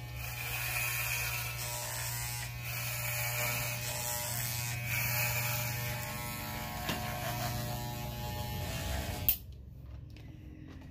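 Corded electric hair clippers buzzing steadily while cutting short hair close to the scalp, switched off with a click about nine seconds in.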